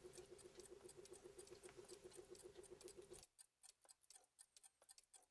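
Faint, rapid, even ticking of a clock or watch mechanism. A lower pulsing layer of the ticking cuts off suddenly about three seconds in, leaving lighter, higher ticks.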